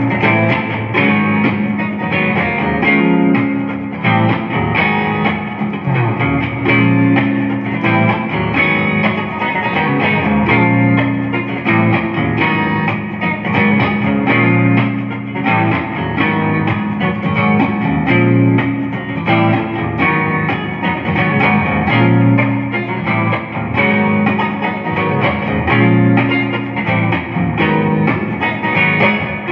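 Clean electric guitar, a Jonah Custom Deluxe '69, played through a Fender Champion 40 amp with a little reverb: a continuous run of picked notes and chords with no pauses.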